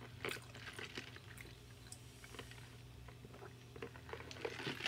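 Faint sipping of a drink through a straw from a plastic cup, with small scattered wet clicks over a low steady hum.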